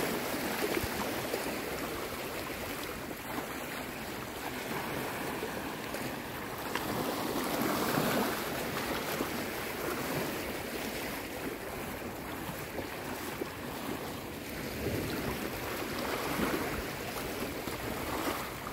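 Shallow sea water washing and sloshing as a person wades through knee-deep surf, with wind on the microphone. The noise swells and eases a few times.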